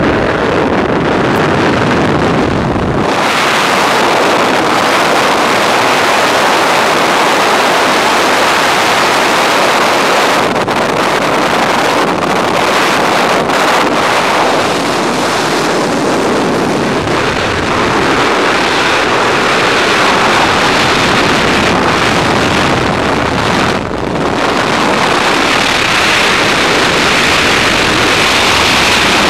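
Freefall wind rushing loudly and steadily over a skydiver's camera microphone. During the first three seconds a deeper rumble of the aircraft's engine is mixed in, and then it drops out.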